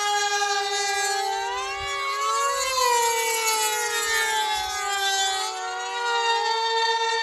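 High-revving 0.40 cu in two-stroke glow engines of composite RC pylon racers, a steady high-pitched whine. The pitch rises and falls several times as the racers speed past, and at times two engine tones overlap.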